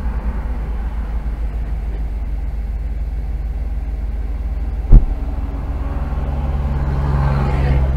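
A stationary car's engine idling with a steady low throb. About five seconds in there is a single sharp thump. Near the end a heavy truck approaches and its engine and tyre noise swell.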